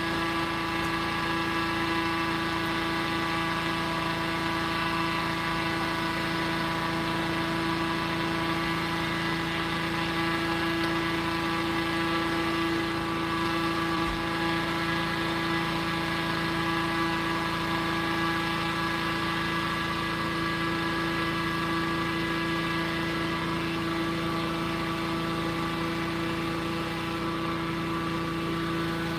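Petrol-engined inflator fan of a hot air balloon running at a steady speed, a constant hum with an unchanging pitch, blowing cold air into the envelope during cold inflation.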